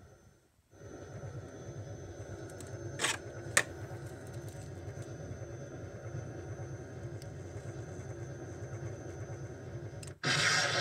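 Spirit Halloween proton pack replica's electronic idle hum, low and steady, dropping out briefly at the start. Two sharp clicks half a second apart come about three seconds in. Near the end a much louder hissing blast cuts in abruptly.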